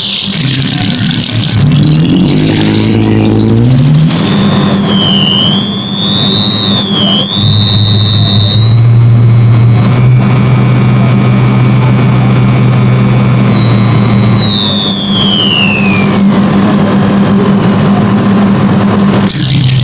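Sound effects played through a brushless (BLDC) motor's windings by its driver, with no speaker: electronic tones that step upward in pitch about 2 to 4 s in, over a high whine that wavers, holds steady, then glides down near the end. It comes across as engine-like.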